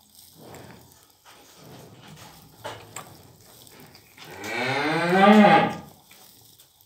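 A cow mooing once, about four seconds in: a single long, low call of about a second and a half that rises in pitch and then falls away.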